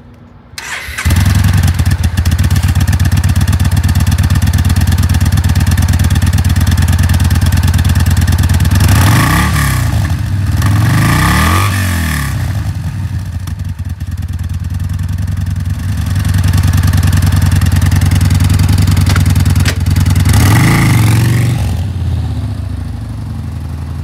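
Yamaha Bolt's air-cooled V-twin on its stock exhaust starting up about a second in and idling, revved briefly twice near the middle and once more about two-thirds of the way through.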